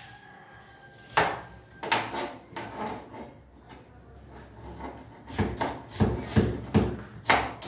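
Kitchen knife slicing a red onion on a plastic cutting board: a few sharp knocks of the blade on the board in the first three seconds, then a quicker run of cuts near the end.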